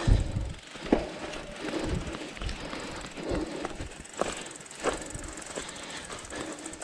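Cyclocross rider running on sand with the bike: uneven thudding footsteps about once a second, with sharp clicks and rattles from the bike.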